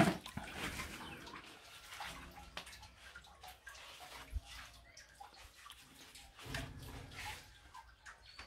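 Water sloshing as a plastic bowl is dipped into a concrete wash basin, loudest right at the start, followed by faint scattered clicks and knocks.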